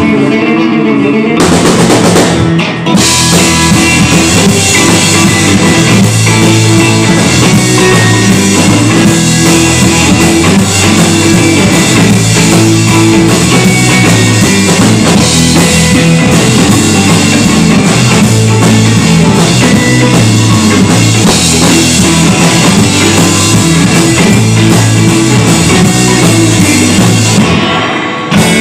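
Live instrumental surf rock band: two electric guitars, electric bass and a drum kit. Guitars play alone at first, the drums and cymbals come in after about a second and a half, and the drums drop out again near the end.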